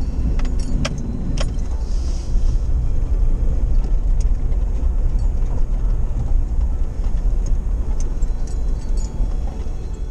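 4x4 being driven on the road: a steady low rumble of engine and road noise, with scattered light rattles and clicks, most in the first second or so.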